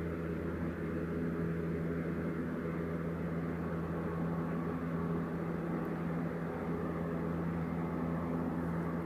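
A steady low droning hum with a layer of hiss, unchanging in pitch and level.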